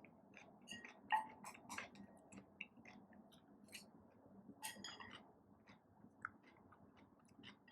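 Faint chewing with small wet mouth clicks and smacks at irregular intervals, a little louder about a second in and again around the middle.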